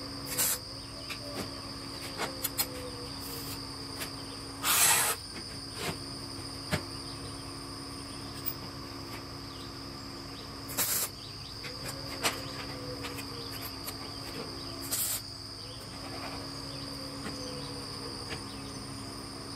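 MIG welder tacking steel: about four short crackling bursts, the longest about five seconds in, with small clicks between them, over a steady high tone and a low hum.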